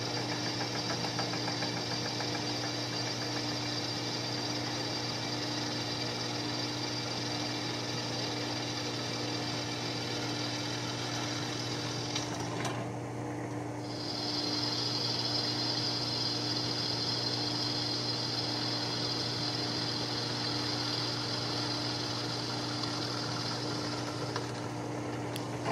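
Drill press running, its twist bit cutting through 1/8-inch steel plate: a steady motor hum with a high cutting hiss over it. About halfway the high cutting sound drops out for a second or so while the motor keeps humming, then the cut resumes.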